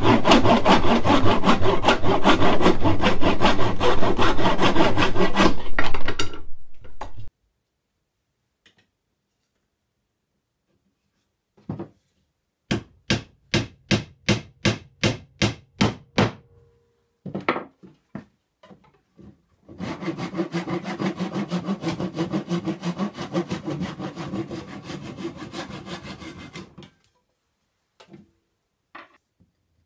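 Flush-cut saw cutting through a wooden dowel in quick back-and-forth strokes for about six seconds. After a pause, a wooden mallet strikes a dowel about ten times, roughly three blows a second, driving it home. Then comes another stretch of sawing.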